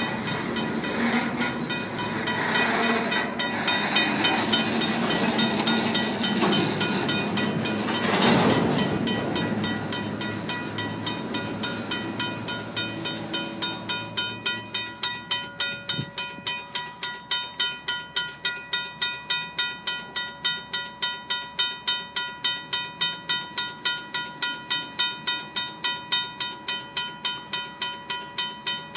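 A loaded grain train of covered hoppers rolls past with a steady rumble and clatter of wheels on rail, swelling to its loudest about eight seconds in. Throughout, the crossing's RACO mechanical bell rings at about three strokes a second, standing out plainly in the second half as the train noise drops.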